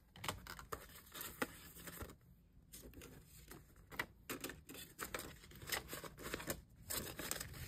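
Paper banknotes and a translucent plastic binder envelope rustling and crinkling as cash is handled and tucked in: a quiet run of short, irregular crackles and soft taps.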